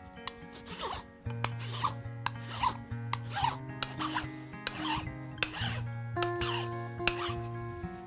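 A small hand file rasping across a hand-held zebrawood knob, in short even strokes about two a second.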